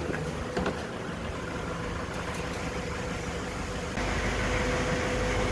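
Toyota 2TR four-cylinder petrol engine idling steadily, becoming louder about four seconds in.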